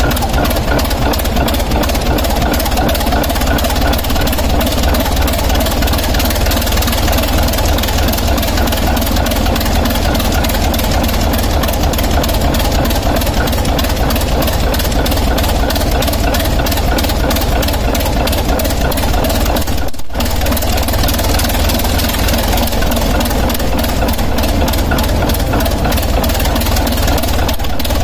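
Six-cylinder locomotive diesel engine running with its exhaust manifold removed, each cylinder's exhaust port firing straight into the open air in a loud, rapid, even chuffing. The sound cuts out for an instant about two-thirds of the way in.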